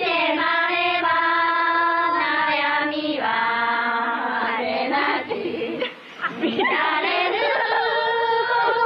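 A group of young Japanese women singing a slogan song together in long held notes, with a brief break about six seconds in. It is a 1929 recording remade with AI voices for a clear sound.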